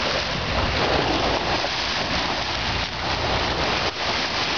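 Small waves lapping and washing up onto a gravel and sand beach, a steady hiss of moving water.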